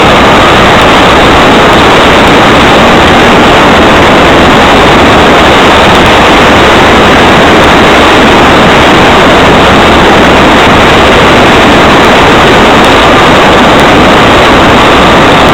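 Yamaha XTZ 750 Super Ténéré parallel-twin motorcycle running steadily on a gravel track, its engine and rushing air merged into a constant, loud, distorted noise.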